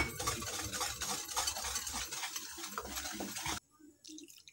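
Wire whisk stirring buckwheat flour and water in a bowl, mixing pakora batter: a quick, continuous scratching and clicking of the wires against the bowl that stops abruptly about three and a half seconds in.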